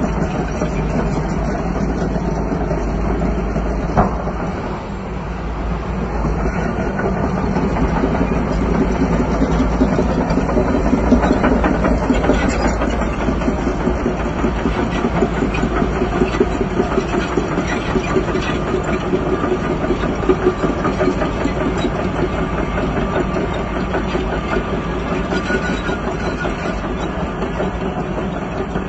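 Crawler bulldozer's diesel engine running steadily under load, with the fast metallic clatter of its steel tracks, and a single sharp knock about four seconds in.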